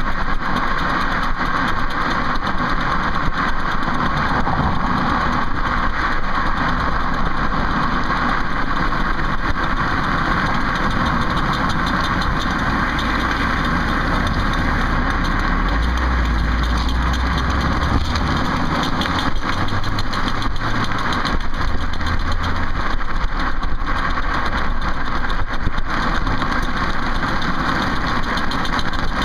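2008 Ford Focus running, with a steady rumble and a run of fine, repeated clicks from the back wheel, a clicking noise whose source the owner cannot find.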